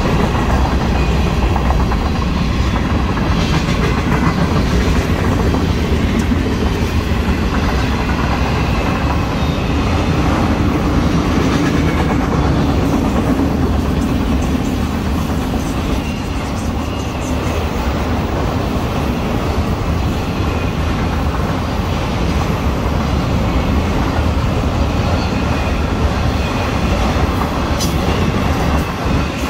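Florida East Coast Railway freight cars (covered hoppers, then autoracks) passing close by: a loud, steady rumble of steel wheels on the rails, with clacking mixed in.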